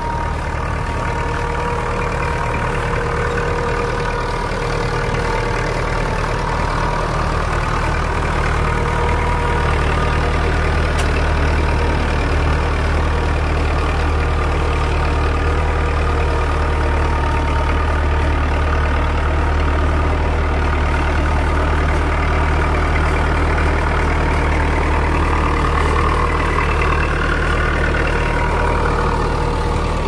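IMT 565 tractor's diesel engine running steadily under load while pulling a plough, with a thin steady whine over the deep engine note.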